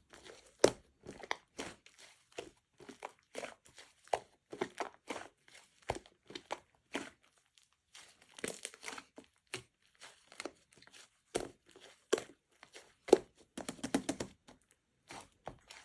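Crinkly material being handled, crumpled and rustled in many irregular short bursts, with a brief pause about halfway through.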